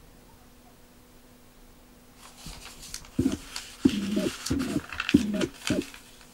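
Paper pages of a small booklet rustling and flipping as they are turned by hand, starting about two seconds in, with a few crisp clicks. Five short, low-pitched sounds fall among the rustling between about three and six seconds in and are the loudest thing heard.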